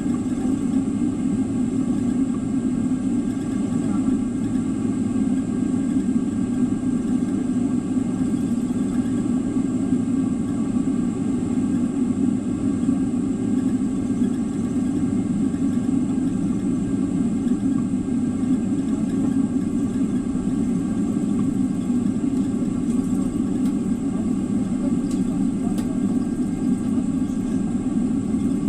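Steady cabin noise inside a Boeing 777-300 on the ground before takeoff: an even low hum with a few faint, steady high tones above it, unchanging throughout.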